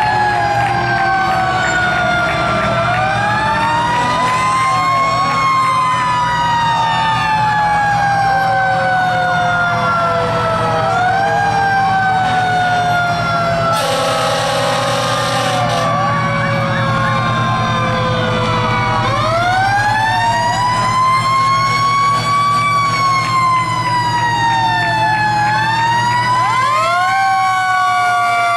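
Several fire truck sirens wailing at once and overlapping, each winding up in pitch and then slowly falling, over the low rumble of the trucks' engines. About halfway through, a hiss cuts in for about two seconds.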